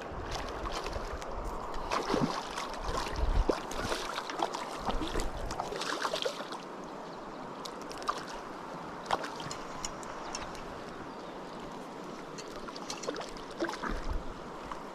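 River water rushing steadily over stones, with scattered sharp clicks and splashes. Wind rumbles on the microphone for about the first six seconds, then stops.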